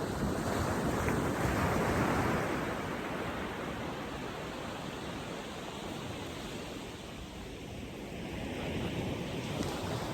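Sea surf washing on the shore: a wave surges in over the first couple of seconds, and another builds near the end.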